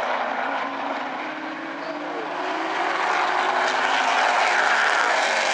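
A pack of street stock race cars running around an oval track, their engines dipping a little and then growing louder as the field comes round.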